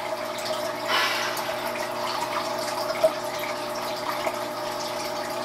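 A steady background hum with hiss. About a second in there is a brief rustle, and a small click comes near the middle.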